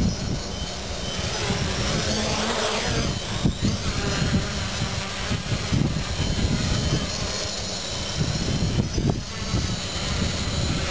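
Quadcopter's electric motors and propellers whining as it lifts off and hovers low, the pitch sliding up and down as the throttle changes. Heavy wind buffets the microphone.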